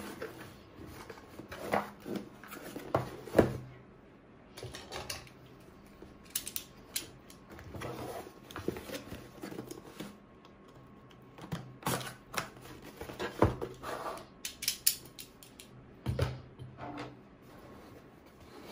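A corrugated cardboard mailer box being handled: irregular knocks, taps and scrapes of cardboard as it is turned over, its flaps opened and folded, and it is set down on the desk. The loudest is a pair of sharp knocks a little over three seconds in.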